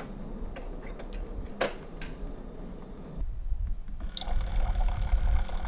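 Liquid being poured and splashing, growing louder after about three seconds, with a low rumble underneath.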